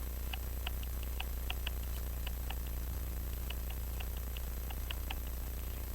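Faint, irregular small metal clicks, about two or three a second, as a fine tool is turned in the slit of a watch hairspring collet to work it off the balance staff. A steady low electrical hum runs underneath.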